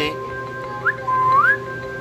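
Whistling in rising notes: a short upward slide, then a longer note that holds and glides upward. Steady held tones sound underneath throughout.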